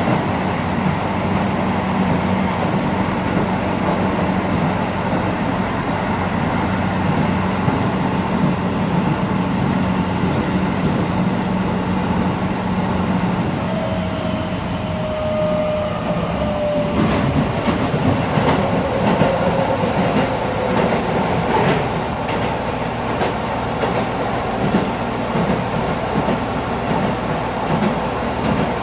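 Keisei 3050-series electric commuter train running, heard from inside the passenger car: a steady rumble and hum with wheels clicking over rail joints. Midway a whine slowly falls in pitch, and a run of sharp clicks follows in the second half.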